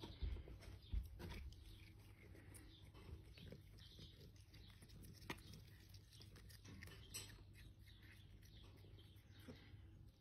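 Faint crunching and clicking of cats chewing cat grass, made up of many small ticks. A few soft low knocks come in the first second and a half, and there is a sharp click about five seconds in.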